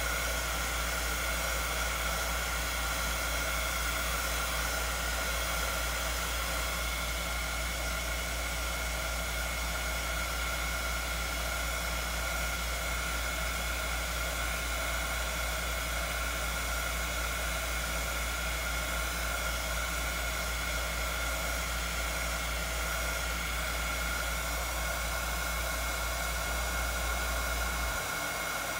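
Handheld electric hot-air blower running steadily over wet epoxy resin: a continuous rushing of air with a steady fan whine. A low hum under it drops out near the end.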